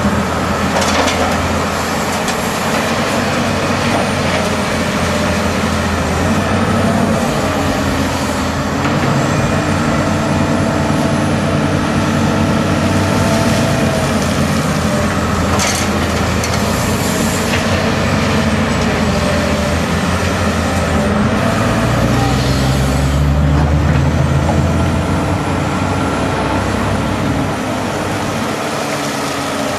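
Hitachi Zaxis 350LCN excavator's six-cylinder diesel engine running under load as the machine digs, swings and dumps, its note rising and falling with the hydraulic work and heaviest a little after two-thirds of the way in. Soil drops into the steel body of a dump truck about halfway through.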